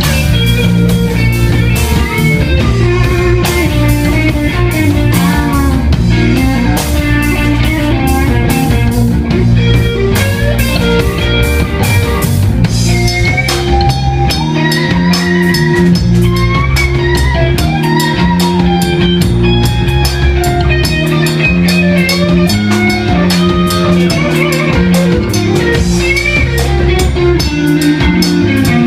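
Rock band playing an instrumental stretch: guitar over a drum kit keeping a steady beat.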